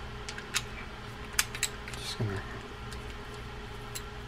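A few light, separate metal clicks and clinks of small tools being handled on a workbench, over a steady low hum, with a brief murmur of a voice about two seconds in.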